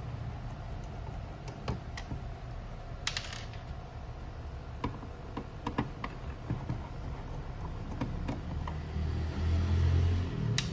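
Small clicks and taps of a hand screwdriver working screws out of the plastic cover of a copier fuser unit, with plastic parts knocking under the hands. A dull low rumble comes near the end.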